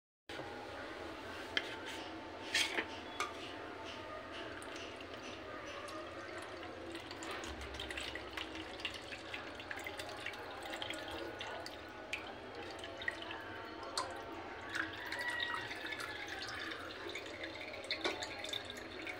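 Lemon juice poured through a small metal strainer, trickling and dripping into a plastic bowl, with occasional light clicks of the strainer against the bowls.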